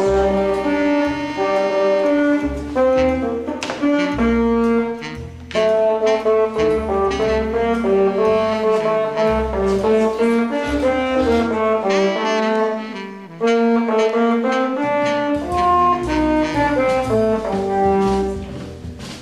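Background jazz music: a horn melody of held, changing notes over a bass line and a steady beat.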